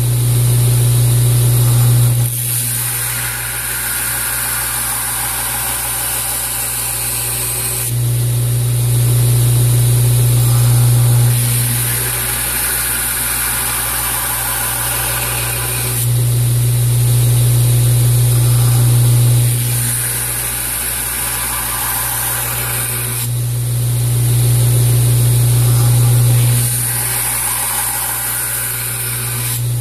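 Wilmont LB1000 2x72 belt grinder running, its motor humming steadily while a steel knife blade is ground against the abrasive belt. The grinding noise swells and eases in stretches of a few seconds as the blade is worked in repeated passes.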